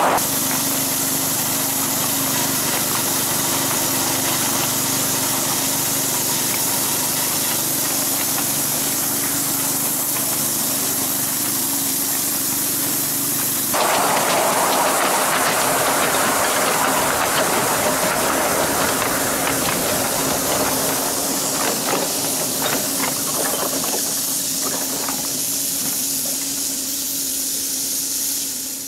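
7¼-inch gauge live-steam miniature locomotive hissing steadily. The sound changes abruptly about halfway through, and scattered clicks and knocks come in the latter part.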